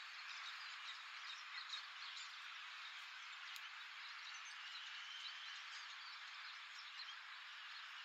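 Dense chorus of many birds twittering and chirping from the riverside, a busy mass of short overlapping calls with a few clearer chirps standing out.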